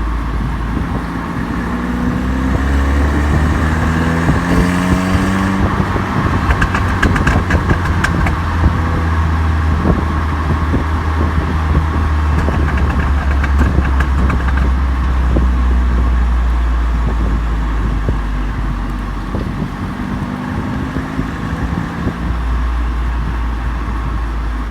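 Exhaust of a tuned 2016 Audi A3 Quattro with a catless downpipe and stock cat-back, heard from behind the car: the revs climb over a few seconds, then on lift-off a rapid string of crackles and pops from the tune's overrun crackle map. A few more pops come around fourteen seconds in, and the revs rise again near the end over a steady low rumble.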